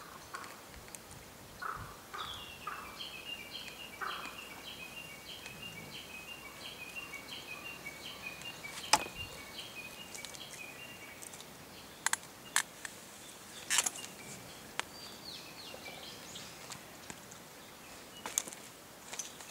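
A bird singing a long run of quick, repeated chirping notes for several seconds, with a few sharp clicks after it.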